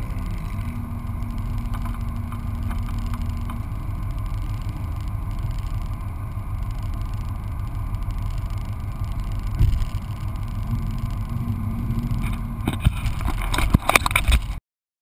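A steady low rumble, then knocks and scrapes near the end as a hand grabs the camera mounted on the car's hood; the sound cuts off suddenly.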